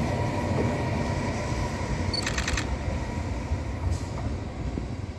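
Passenger train running past on the rails, its rumble fading as it moves away. A short run of clicks comes about two seconds in.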